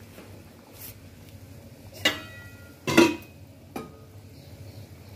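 Metal cookware clanking on a stove. A ringing clink comes about two seconds in, a louder clank about a second later, then a small click.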